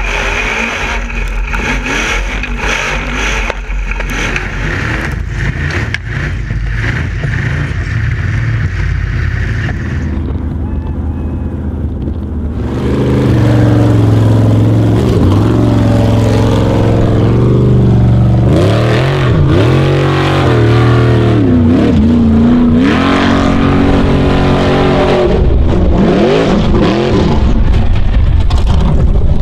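Formula Offroad buggy's V8 engine, heard at first as a steady noisy drone. From about thirteen seconds in it is louder and revving hard, its pitch rising and falling again and again as the buggy climbs a steep sand hill.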